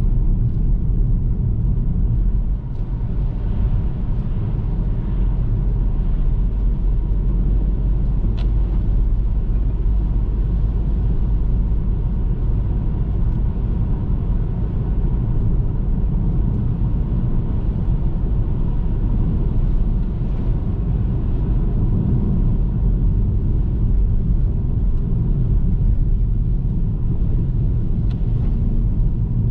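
Car driving: a steady low rumble of road and engine noise, with a couple of faint ticks.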